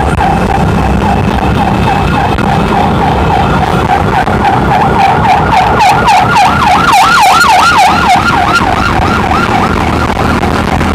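Police escort car's electronic siren wailing, then switching to a fast yelp of rapid rising-and-falling sweeps from about five to nine seconds in, over the steady drone of many motorcycle engines.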